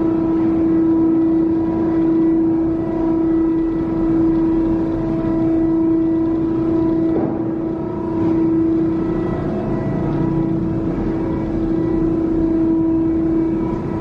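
IMABE MP100 non-ferrous hydraulic baler running, its electric-motor hydraulic power unit giving a steady, even whine with overtones. A faint knock comes about seven seconds in.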